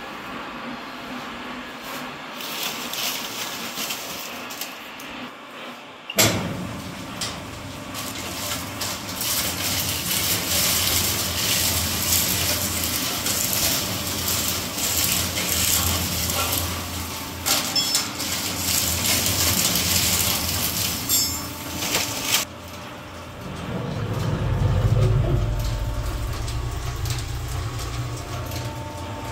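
Dual-shaft shredder shredding pharmaceutical blister packs: a sharp crack about six seconds in, then a long stretch of dense crackling as the cutters tear the packs. Near the end the crackling gives way to a low steady motor hum.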